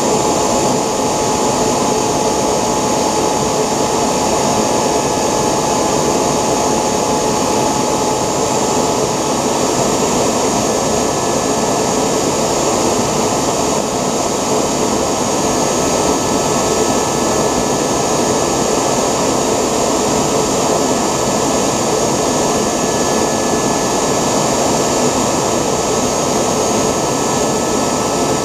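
3D-printed model jet engine running steadily: a continuous rushing hiss with several high whining tones. One lower whine fades away about nine seconds in.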